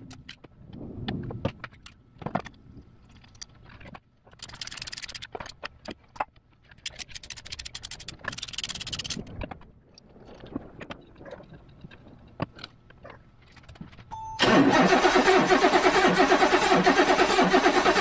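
Starter cranking the 1984 BMW 733i's 3.2-litre inline-six for about four seconds, from near the end, with a compression gauge in one plug hole. The engine turns over evenly without firing, as it has no fuel or spark. Before that come scattered tool clicks and two short hisses.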